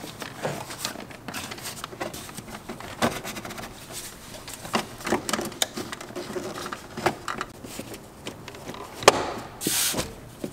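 The plastic air cleaner housing of a BMW N55 engine being fitted back into place by hand: a run of irregular plastic clicks, knocks and rattles. A sharper knock comes about nine seconds in, followed by a short rustle.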